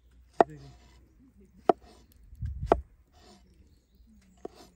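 Kitchen knife chopping tomatoes on a wooden cutting board: four sharp knocks of the blade hitting the board, roughly a second apart.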